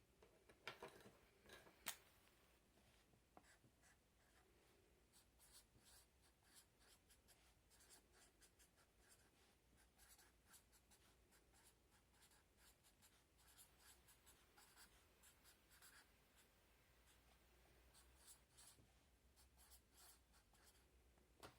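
Faint, irregular scratching strokes of someone writing by hand, likely writing out the letters that can stand for the S sound.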